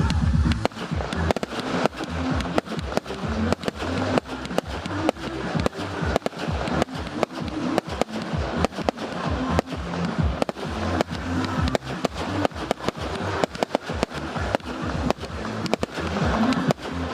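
Fireworks display: a rapid, irregular string of bangs from shells and cakes going off, several a second, with music playing underneath.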